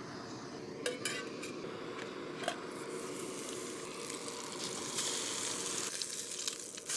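Small canister gas stove burner running steadily, with a few light clinks of the aluminium frying pan being set on it; from about five seconds in, a steak sizzles as it goes into the hot pan.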